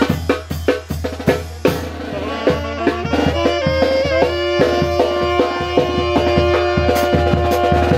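Brass band music with drums: a steady beat of drum hits under horns, which hold long notes through the second half.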